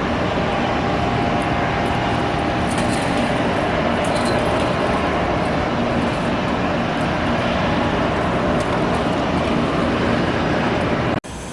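Steady, loud rushing noise with a faint underlying hum, which drops out abruptly near the end.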